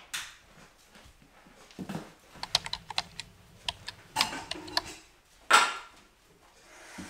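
Kitchen handling sounds: a scatter of quick light clicks and clinks of things being handled and set down on a counter, with one louder knock a little past halfway.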